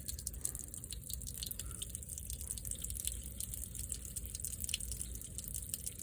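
Water dripping and trickling out of a 2019 Toyota RAV4's rear door as a steady patter of many small drips. It is rainwater the door has held instead of draining away.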